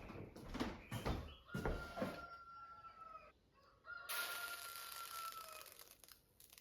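Rooster crowing twice, each crow a long held call, after a few sharp knocks near the start.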